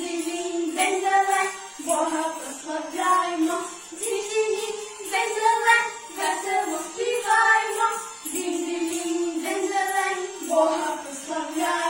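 Two girls singing a Ukrainian koliadka, a Christmas carol, in short phrases of held notes.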